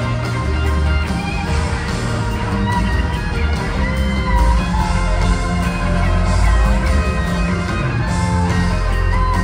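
Live rock band playing loudly: electric guitar lines over bass and drums, heard from within the concert crowd.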